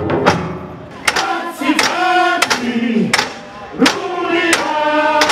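Several actors' voices calling out together in long held cries, one sliding down in pitch, with sharp thumps and knocks of bodies and stage furniture between them.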